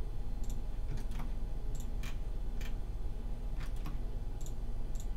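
Computer mouse clicking: about a dozen light, sharp clicks at irregular intervals, over a steady low electrical hum.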